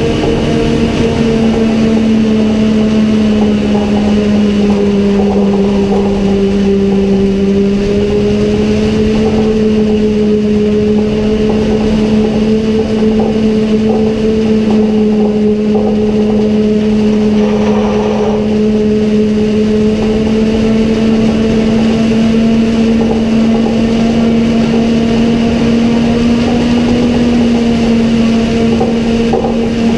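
Forage harvester and tractor working side by side while chopping maize: a loud, steady machinery drone with a slight dip in pitch a few seconds in, over the rushing of the chopped crop.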